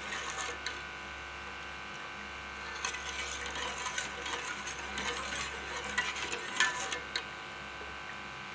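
Metal ladle stirring thick tomato ketchup in a metal pot, scraping and clinking against the pot's side, with a sharper clink about two-thirds of the way through.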